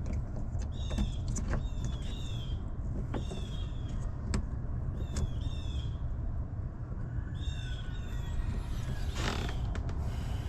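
Birds chirping: many short, high, repeated calls over a steady low rumble, with a few sharp clicks in between.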